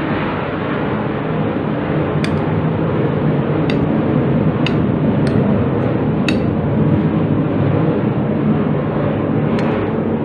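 A fork clinking sharply against a ceramic plate about six times at irregular spacing while it stirs a mayonnaise salad. Under the clinks runs a loud, steady rushing noise with a low hum.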